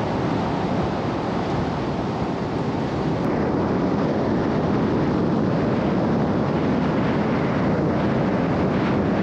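Four-wheel drive travelling on a rough corrugated dirt road: a steady, loud rumble of tyre and road noise with no letup.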